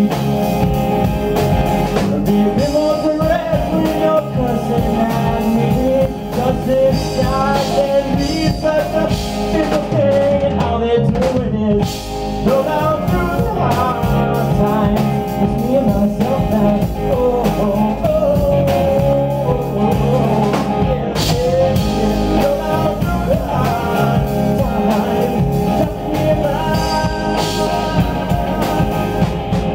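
A live rock band playing: hollow-body electric guitar, bass guitar and drum kit, with a singer's voice over them.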